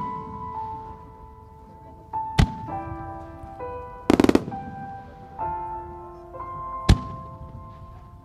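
Aerial firework shells bursting in the sky: a single bang about two and a half seconds in, a quick rattle of several bangs around four seconds, and another bang near seven seconds. Underneath runs a melody of held notes, the music the creative fireworks are set to.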